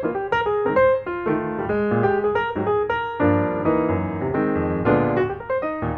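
Piano music playing a quick run of notes that fills out into fuller chords in the middle.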